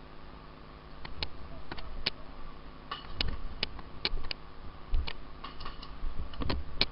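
Airsoft guns firing: a dozen or so sharp ticks at uneven intervals, starting about a second in, with a few low thuds among them.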